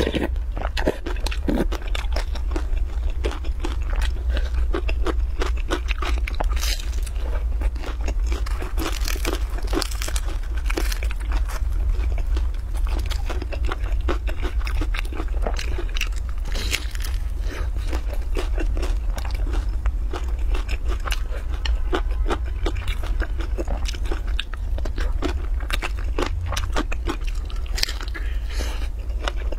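Close-miked biting and chewing of a crisp pan-fried flatbread with a green vegetable filling: many small irregular crunches and wet mouth sounds over a steady low hum.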